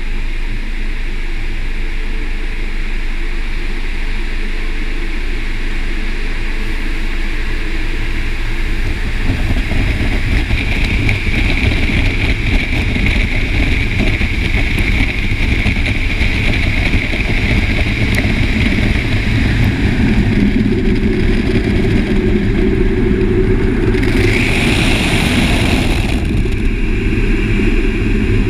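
Automated car wash tunnel machinery running steadily, with rotating brushes turning. It gets louder about nine seconds in as the car nears the brushes, and a brief louder hiss comes a few seconds before the end.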